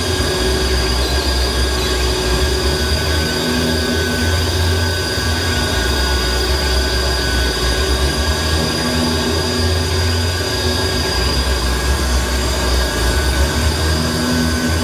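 Live harsh electronic noise music: a dense wall of hiss and screech with steady whining tones held high and mid, over a heavy low drone that cuts in and out every few seconds.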